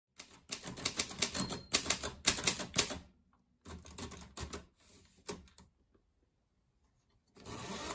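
Manual typewriter typing: quick runs of sharp key strikes, a long run, then after a short pause a shorter one. A steady background noise comes in near the end.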